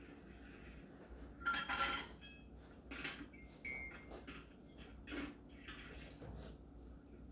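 Dishes clinking and clattering as they are washed by hand. The loudest clatter, with a brief ringing, comes about a second and a half in, followed by several lighter knocks.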